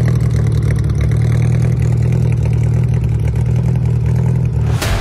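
Old Japanese sedan's four-cylinder engine idling steadily through an aftermarket single exhaust, a deep, even burble heard at the tailpipe. Near the end it is cut off by a loud electric-guitar hit as music comes in.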